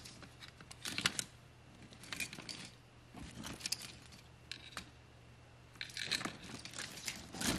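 Loose automotive wires and plastic harness connectors rustling and clicking as a hand sorts through them in a plastic bin: scattered soft clacks and rustles with quiet gaps, busiest near the end.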